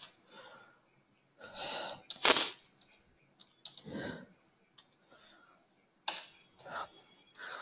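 Short breathy noises from a person, the loudest a little over two seconds in, with a few faint computer-keyboard keystrokes as a file name is typed.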